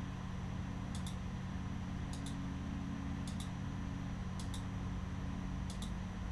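Computer mouse clicks, about five of them roughly a second apart, each a quick press-and-release pair, as points are picked on screen. A steady low hum runs underneath.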